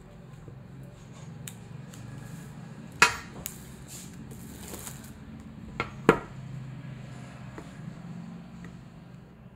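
A sealed smartphone box being unwrapped and handled: light rustling of its plastic wrap, with two sharp knocks, one a little after three seconds in and one about six seconds in, over a steady low hum.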